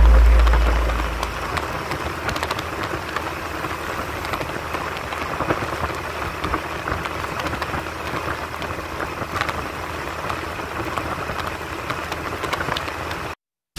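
Background music fades out in the first second or so, then a steady rush of wind and road noise on the microphone from riding along a road, with light crackling. The sound cuts out suddenly just before the end.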